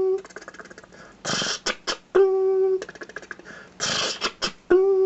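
A man imitating an old-school slot machine with his mouth, beatbox-style. Hissing bursts and sharp clicks are each followed by a held, hummed single-pitch 'ding', three times about every two and a half seconds, with quick clicking in between.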